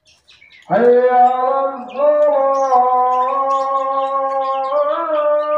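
A voice holding one long sung note, about six seconds, with a few slight bends in pitch, starting just under a second in. Birds chirp faintly throughout.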